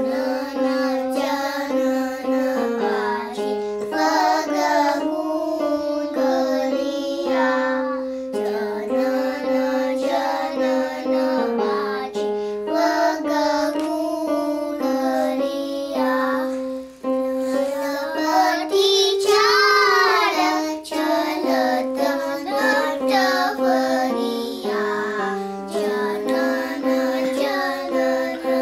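A group of children singing a bandish in Raag Bihag together, a Hindustani classical vocal composition, moving through held notes that step from pitch to pitch, with a wavering ornamented phrase about two-thirds of the way through.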